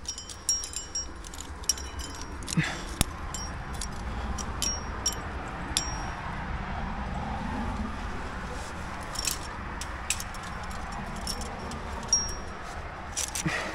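Metal carabiners and climbing gear on a harness clinking and jangling in many short, irregular taps with a brief high ring.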